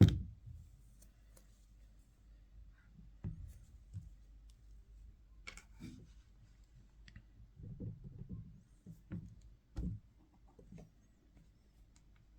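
Handling of an iPad Pro and its Magic Keyboard: one sharp click right at the start, then scattered light clicks, taps and knocks.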